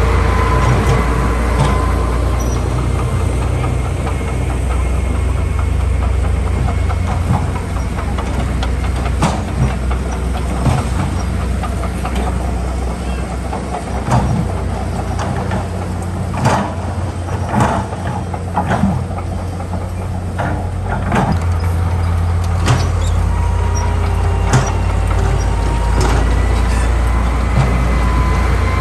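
Heavy diesel earthmoving machinery running with a steady low drone. Through the middle come many sharp metallic clanks and knocks.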